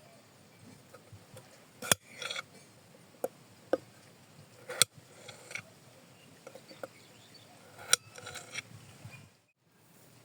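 Cooking utensils being handled: a handful of sharp, irregular clinks and knocks, the loudest about two, five and eight seconds in, some followed by a brief clatter.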